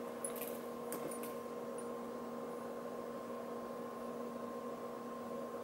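Steady electrical hum, with a few light clinks in the first second or so as a handbag's gold chain strap is handled.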